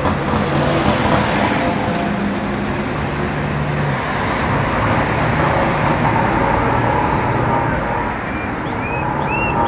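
Street traffic: engines of passing vehicles running under a steady din of road noise. Near the end a run of short rising chirps begins, repeating a few times a second.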